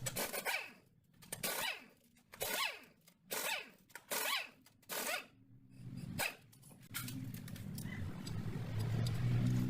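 A dog barking about six times in a steady rhythm, roughly one bark a second, then stopping; a steady low hum follows near the end.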